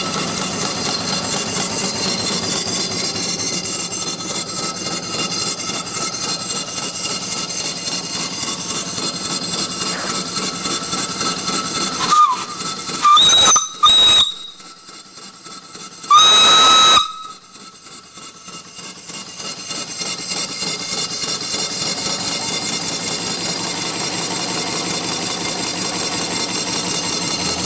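Small single-cylinder vertical steam engine running steadily. About twelve seconds in, the boiler's brass steam whistle is blown: three short toots, then one longer blast of about a second. The engine's running sound then builds back up.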